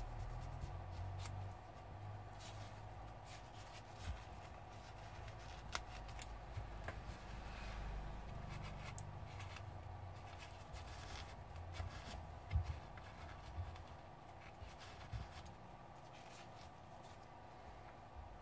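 Faint rustling with scattered light clicks and taps as old thermal grease is wiped off the CPU and heatsink of a disassembled laptop.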